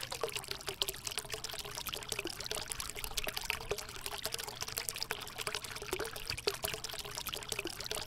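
Small tabletop water fountain running: a thin stream of water pouring from a spout onto pebbles in a basin, a steady trickle dotted with many small splashes.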